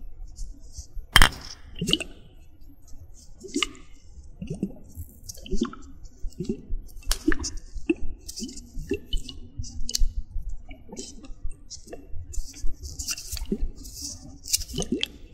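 Glass ice globes (facial massage cryo balls) rolled and rubbed against the binaural microphone. They make irregular wet squishes, short squeaks and sharp clicks.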